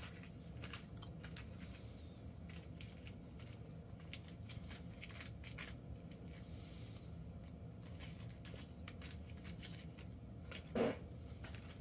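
Small plastic spoon scraping and clicking against a plastic tray while Poppin' Cookin' candy powder and water are stirred into a dough: faint, irregular little clicks and scrapes. A short, louder low sound comes near the end.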